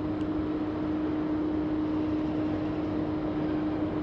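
Steady mechanical hum: one constant droning tone over an even hiss, unchanging throughout.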